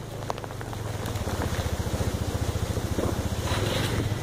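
Small motorbike engine running while riding, growing louder over the first second or so, under a hiss of rain and wind.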